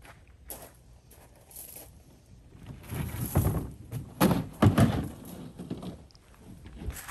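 Hollow plastic kayak hull thunking and scraping as it is tipped and shifted on its wheeled cart on gravel, with the loudest knocks about three to five seconds in.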